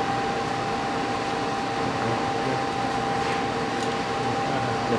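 Steady fan or ventilation hum with a thin, constant high tone running through it.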